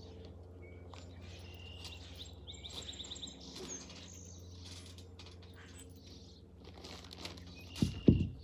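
Birds chirping and trilling in the background over a faint steady low hum, with two heavy thumps close together near the end.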